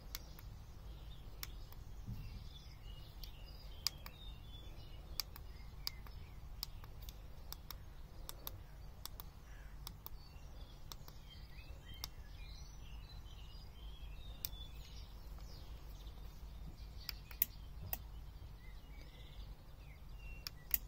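Small birds chirping over a steady low hum, with sharp ticks coming irregularly every half second to a second or so.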